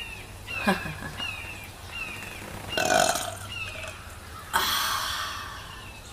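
A woman's deep gut burps brought up by a fizzy drink: a shorter one around three seconds in, then the loudest, starting suddenly about four and a half seconds in and fading over about a second and a half. A bird chirps over and over in the background, a short falling note about twice a second.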